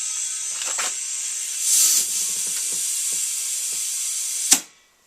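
Compressed air hissing steadily through an air chuck into an Argo tire to push the bead onto the rim, with the bead not yet seated. It stops with a sharp click about four and a half seconds in.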